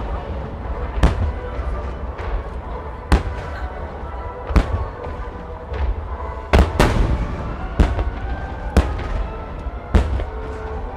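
Aerial firework shells bursting in a display: sharp bangs every one to two seconds, each trailing off in an echoing rumble, with music playing underneath.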